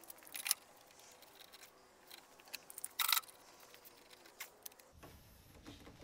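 Metal bar clamps being set and tightened over a veneer glue-up: a few short clicks and knocks, with a louder clatter about three seconds in.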